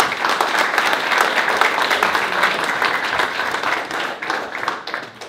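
A small audience clapping and applauding, many hands at once, dying away near the end.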